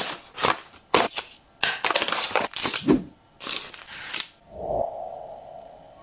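Handling of the tablet and its packaging: a quick run of sharp clicks, snaps and crackly rustles of plastic and box, then a short ringing tone a little over four seconds in that fades away.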